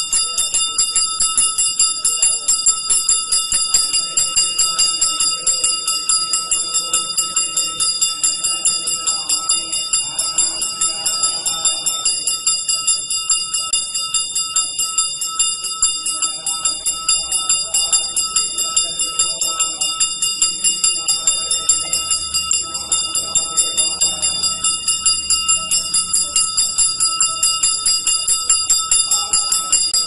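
Metal temple bell ringing continuously, struck rapidly and evenly several times a second, the bright ringing tone never letting up, as is done during an abhishekam.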